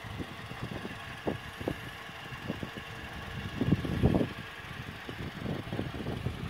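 Wind buffeting the microphone in irregular low gusts, loudest about four seconds in, over a faint steady background hum.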